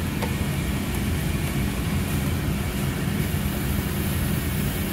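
Steady low hum and rumble of building ventilation machinery, such as an air handler running.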